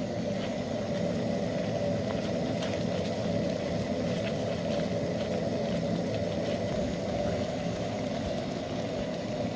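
Risotto simmering in a stainless steel pan on a tabletop burner as it is stirred with a wooden spoon: a steady low rushing noise with faint scattered ticks.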